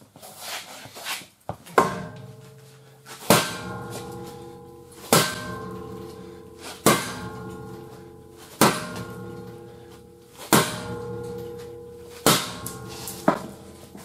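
Hammer blows on steel, about eight evenly paced strikes roughly every second and three-quarters, each leaving a metallic ring that fades before the next.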